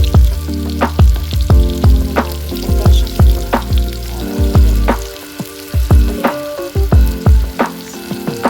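Pork frying in a pan, sizzling steadily, under background music with a steady thumping beat and held chords; the beat is the loudest thing.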